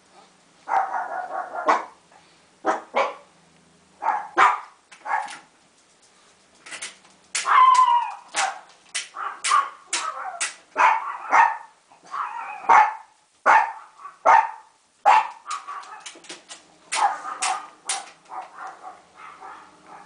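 A dog barking repeatedly, short sharp barks coming in quick runs of two or three, growing fainter near the end.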